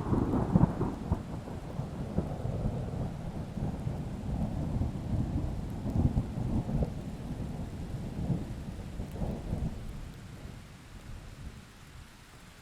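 A long roll of thunder over steady rain: it breaks in suddenly with a crackle, rumbles low with several swells, and dies away near the end, leaving the rain.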